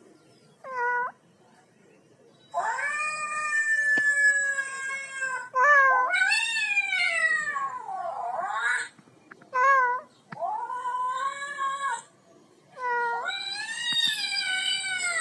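Recorded cat meows and long drawn-out yowls played back from a video, about six calls in a row. Some are short and some last several seconds, wavering up and down in pitch, with brief pauses between them.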